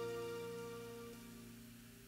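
A live band's final chord ringing out and slowly fading away, with one of its held notes dropping out about a second in.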